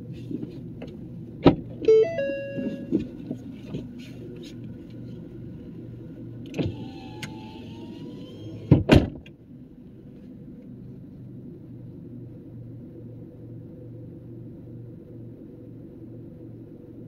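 Disc golf putts hitting a chain basket: a sharp clank about a second and a half in, then a hit with ringing metal tones; later a stretch of jingling chains and two loud knocks near nine seconds. A steady low pulsing hum runs underneath throughout.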